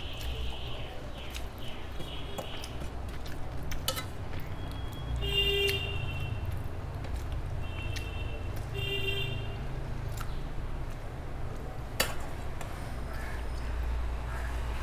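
Eating by hand from a steel plate: soft sounds of fingers mixing rice and curry, with a few sharp clicks on the plate. Behind it runs a steady low rumble, with several short high-pitched beeps about 2, 5, 8 and 9 seconds in.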